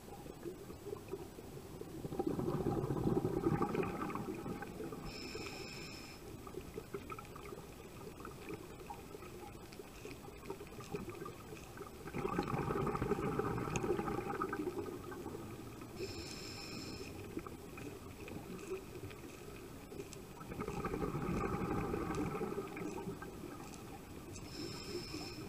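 Scuba diver breathing through a regulator underwater, heard through the camera housing. There are three bubbling exhalations about nine seconds apart, each lasting two to three seconds, and each is followed by a short, higher hissing inhale through the regulator.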